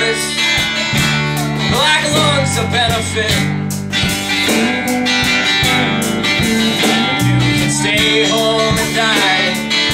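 Live band playing an instrumental passage of a song: strummed acoustic guitar over electric bass and steady drum hits.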